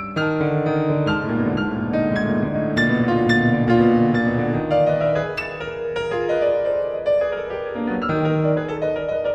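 Instrumental music led by piano, with several notes sounding together and new notes struck throughout.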